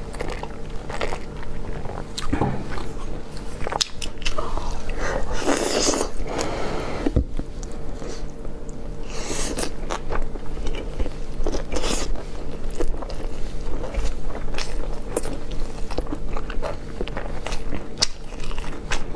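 Close-miked mouth eating sounds: biting and chewing with irregular crunchy clicks, and a couple of longer rustling noises about six and nine seconds in.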